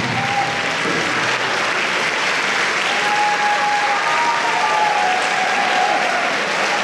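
Audience applauding, with a few drawn-out calls rising above the clapping.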